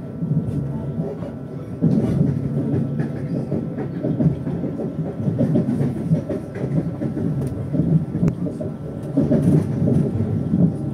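Ride noise inside a carriage of a Lastochka (Siemens Desiro RUS) electric train under way: a steady rumble of wheels on rails, with an occasional click and a faint steady whine above it.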